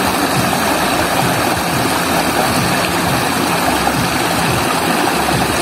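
Shallow stream rushing over rocks: a steady, even rush of running water.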